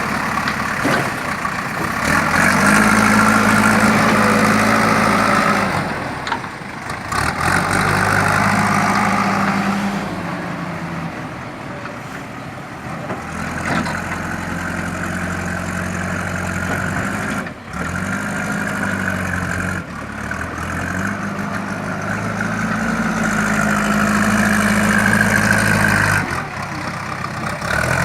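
JCB 3DX backhoe loader's four-cylinder diesel engine working, revving up under load and settling back several times, with a few abrupt breaks in the sound.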